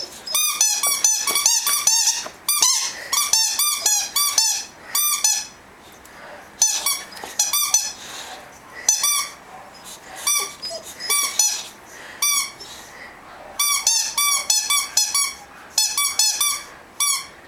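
Squeaky rubber toy ball squeezed again and again to tease a dog, giving runs of short, sharp squeaks, about four a second, broken by short pauses.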